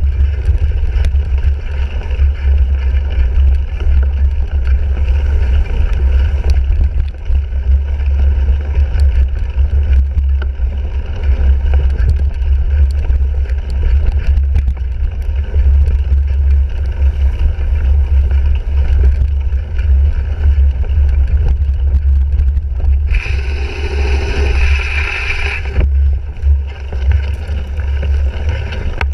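Wind and vibration rumble on a bike-mounted GoPro while a cyclocross bike is ridden over rough ground, with constant rattling clicks. About three-quarters through, a louder rush of hiss lasts about three seconds.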